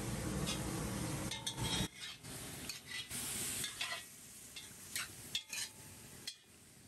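A steady rush of noise stops abruptly about two seconds in. Then a metal spoon scrapes and clinks against a cast-iron pot as doves stuffed with pork sausage are stirred while they brown, with light sizzling in the oil.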